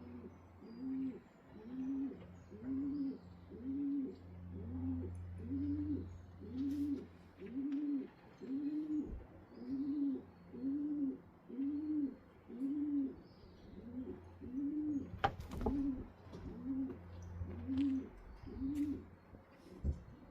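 A pigeon cooing over and over, a steady run of low, arching coos about one a second, with faint small-bird chirps above and a sharp click about three-quarters of the way through.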